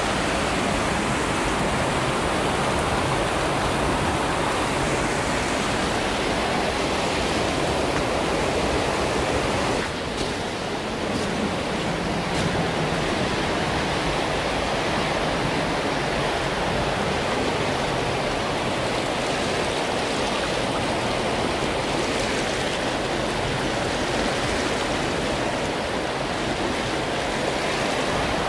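Floodwater rushing steadily against and under a bridge: a loud, continuous sound of fast-running water.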